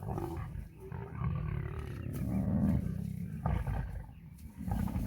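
Lions growling in repeated low, rough bouts over a buffalo they have brought down.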